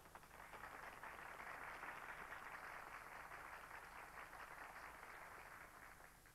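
Faint audience applause, swelling over the first two seconds and fading out near the end.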